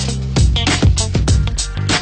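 Background music with a steady beat of drum hits over a held bass line.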